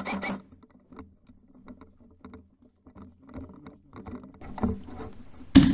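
Footsteps and gear rustle on a concrete stairwell, faint irregular knocks and scuffs that grow busier, after a fast mechanical rattle of about six pulses a second stops just after the start. A single sharp loud knock comes near the end.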